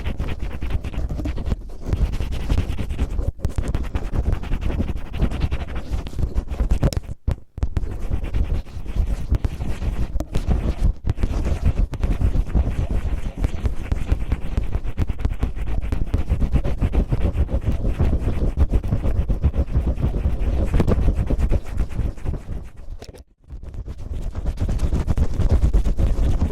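Cellophane crinkled and rubbed roughly against a microphone to imitate ear cleaning: close, continuous rustling and scratching with a rumble from handling the microphone. It stops briefly about seven seconds in and again about twenty-three seconds in.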